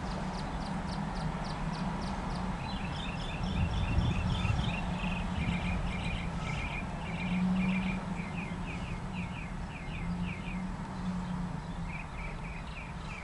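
A songbird singing runs of quick repeated chirps, about four a second, over the steady low rumble of a slow-moving empty coal train of hopper cars.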